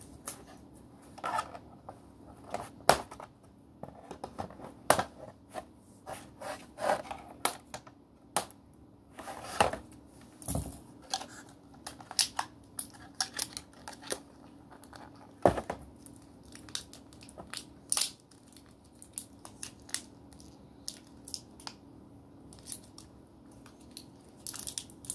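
Small plastic toy pieces and their packaging being handled: scattered clicks, taps and crinkling rustles, over a faint steady hum.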